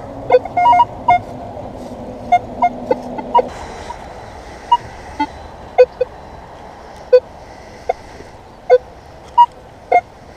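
Minelab X-Terra Pro metal detector giving short beeps at several different pitches as its coil is swept over buried metal targets, in irregular groups through the whole stretch.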